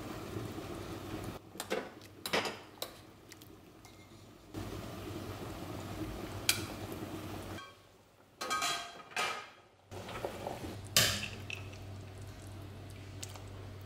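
Metal utensils and an enamel lid clinking against an enamelware stockpot as the lid is lifted and the contents are stirred and lifted out: a few sharp, separate clinks over a steady low hum.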